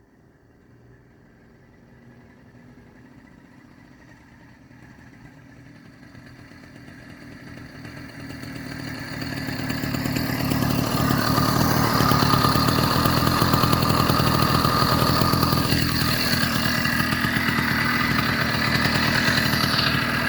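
Two-stroke 80cc Zeda motorized-bicycle engine running, faint at first and growing steadily louder over about ten seconds, then running loud and steady close by with a couple of brief dips in pitch.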